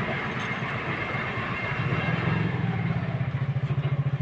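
An engine running nearby with a fast, even low pulse. It grows louder about halfway through and fades near the end.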